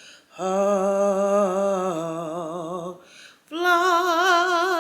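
A woman's voice singing two long held notes with a wavering vibrato, unaccompanied. The second note starts about three and a half seconds in, higher than the first.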